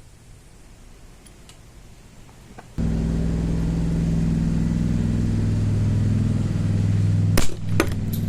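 Loud, steady electrical hum that switches on abruptly a little under three seconds in, as power is put across a capacitor. Near the end come two sharp cracks as the capacitor bursts, and the hum carries on after them.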